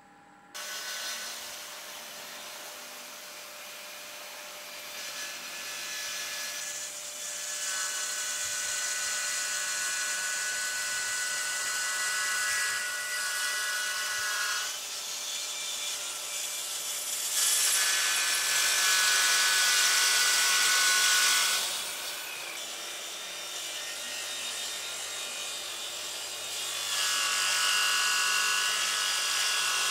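Festool HK 85 EB circular saw running along its guide rail and cutting the edge of a wood-and-epoxy slab, starting suddenly about half a second in with a steady whine. The sound grows louder in three stretches of several seconds each, the longest near the middle.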